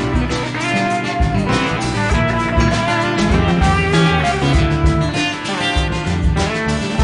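Background music: an electric guitar-led band track with drums and a steady beat.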